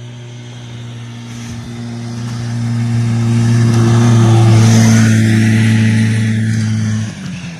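Buran snowmobile's two-cylinder two-stroke RMZ-640 engine running at full throttle as it comes on at speed, its steady note growing louder to a peak about halfway through, then the throttle is shut off suddenly near the end.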